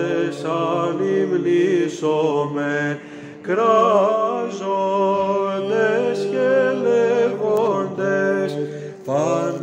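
Two male chanters singing Byzantine chant in a long, wordless melismatic passage. A steady held low drone (ison) sits under the moving melody, with a brief break for breath about three seconds in.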